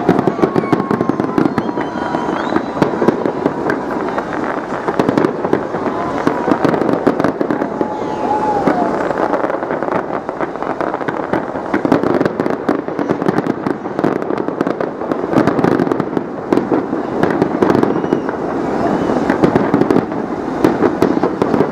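Aerial fireworks display: a continuous, dense barrage of bursts and crackling, with no pause.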